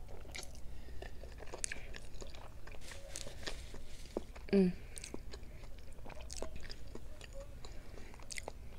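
A person chewing a mouthful of food, with wet smacks and clicks, and one short hummed 'mm' about four and a half seconds in.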